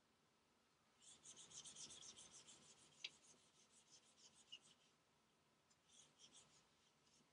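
Whiteboard eraser wiping across a whiteboard in quick back-and-forth strokes, faint. It starts about a second in and runs for several seconds, with a light tap about three seconds in, then a short second burst of wiping near the end.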